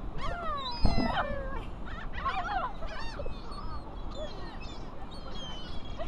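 A flock of gulls calling overhead: many overlapping cries that slide down and up in pitch, with a brief low thump about a second in.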